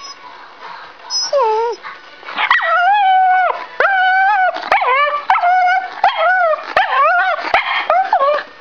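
Scottish Terrier whining and yipping in a long run of high cries that rise and fall in pitch, begging for food. One short cry comes about a second in, then the cries run almost without a break from about two seconds on, with a few sharp clicks between them.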